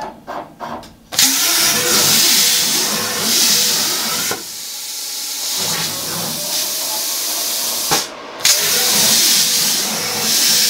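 CNC plasma cutter cutting holes in a steel exhaust header tube: after a few short clicks, the torch's arc starts about a second in with a loud, steady hiss. The hiss stops briefly near the end and then starts again on the next hole.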